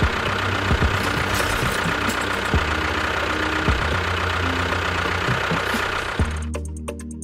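Tractor engine running steadily with a knocking idle. About six seconds in the sound changes: the hiss drops away and a low steady hum is left, broken by short gaps.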